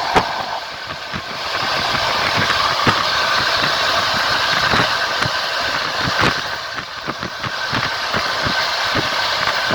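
Passenger train carriage rolling along the track: a steady rushing rumble, with the wheels knocking repeatedly over rail joints.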